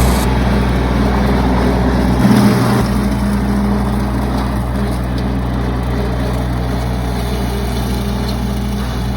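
A vehicle engine running steadily, with a brief change in its note and a small rise in level about two seconds in.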